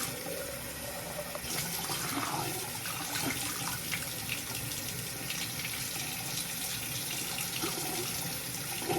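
Bathroom sink tap running steadily, with a brush being rinsed under it and clay face-mask residue washed out.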